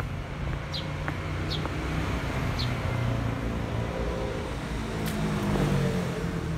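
Motor vehicle traffic: a steady low rumble, with an engine rising in pitch as it speeds up about two thirds of the way through.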